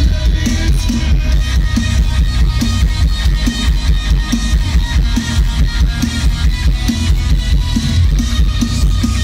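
Loud live rock music from a stadium PA: electric guitar over drums with a steady, even beat.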